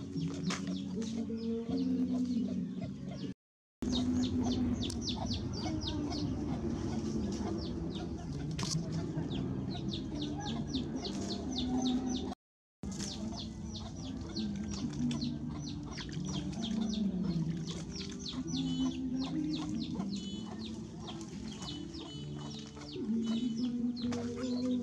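Chickens clucking around a rural yard, with small birds chirping throughout. The sound drops out briefly twice, about three and a half and twelve and a half seconds in.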